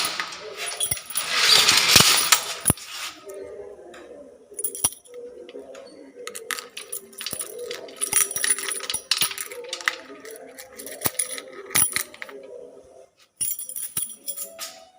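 Iron grill gate being moved: two loud metal-on-metal scrapes in the first three seconds, then a string of sharp metallic clanks and clinks with a ringing edge, up to about two seconds before the end.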